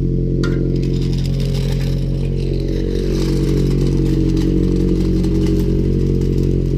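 Car engine idling steadily after a fresh start, with a sharp click about half a second in.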